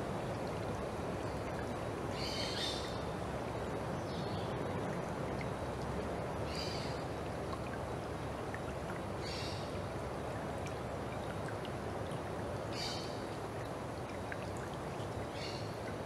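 Rainforest stream flowing steadily over a shallow stony bed. A short, high-pitched animal call repeats about six times, every two to three seconds.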